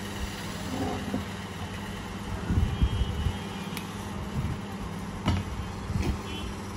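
Steady low mechanical background hum, with a few dull low thumps scattered through it.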